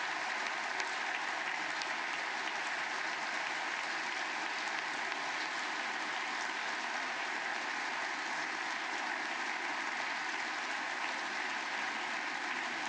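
Sustained applause from a large standing audience of members of Congress, an even, steady clapping.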